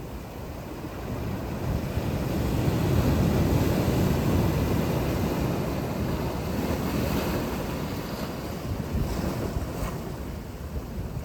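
Sea waves breaking and washing in, one swell building about two seconds in and slowly ebbing away, with wind rumbling on the microphone.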